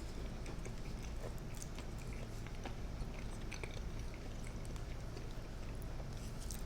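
Close-miked chewing, with soft wet mouth clicks scattered throughout, over a steady low hum.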